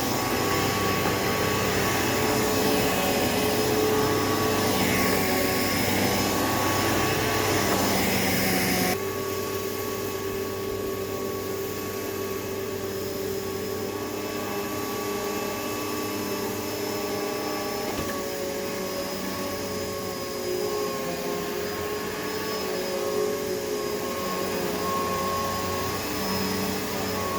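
2007 Hoover Elite Rewind upright vacuum cleaner running steadily, its motor freshly cleaned of grass. About nine seconds in, its sound drops suddenly to a lower, less hissy level and carries on steadily.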